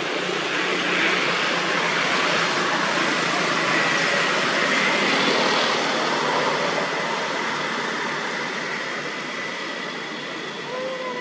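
Road traffic passing close by: a steady rush of vehicle noise that swells over the first few seconds and slowly fades, with a faint thin high tone running through it.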